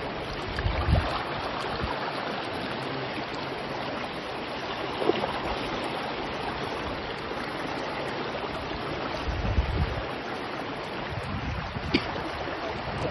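Fast, shallow river rushing over stones, a steady wash of water. Two short low rumbles on the microphone come about a second in and again near ten seconds.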